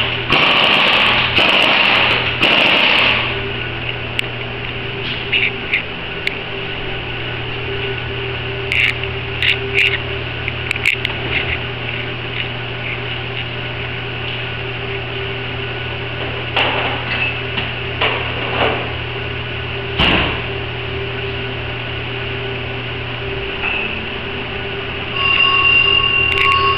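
Pneumatic impact wrench at a wheel's lug nuts, running for about three seconds. After that a steady low hum with scattered clicks and knocks, and near the end a steady high-pitched whine.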